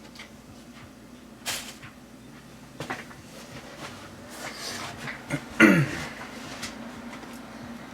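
Handling noise: an object being moved about and set down, with a few light knocks. About five and a half seconds in there is a louder scrape with a falling creak.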